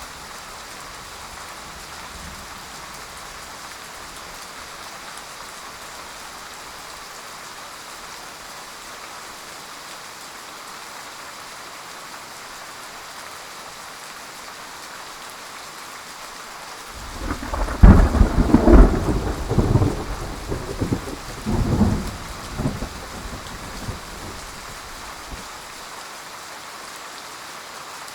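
Steady heavy rain falling, with a loud thunderclap about two-thirds of the way in that cracks and rolls for several seconds before fading back to the rain.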